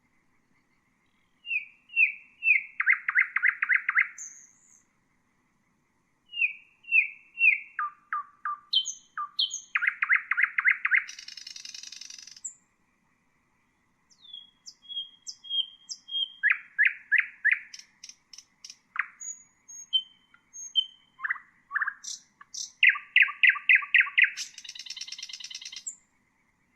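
Nightingale singing three phrases separated by short pauses. Each phrase is built from runs of repeated notes and fast rattling trills, with a few high thin whistles.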